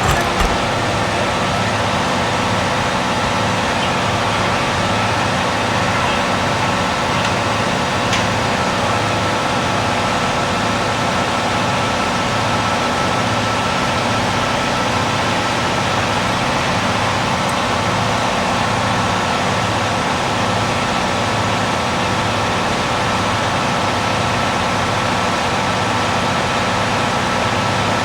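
JNR 181-series diesel express railcar's engines idling steadily at a standstill, with a regular low throb and a constant higher whine. There is a short knock just after the start.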